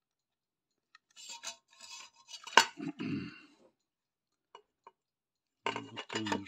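Sheet-metal case and front panel of an old Unitra Zatra power supply clattering and clinking as they are handled and pulled apart. There is one sharp metallic knock about two and a half seconds in, the loudest sound. After a short pause with a couple of faint ticks, more rattling comes near the end.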